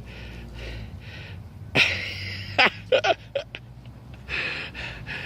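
A man's breathing close to the microphone: several breathy exhales, the loudest about two seconds in, with a few short murmured vocal sounds around the middle over a steady low background rumble.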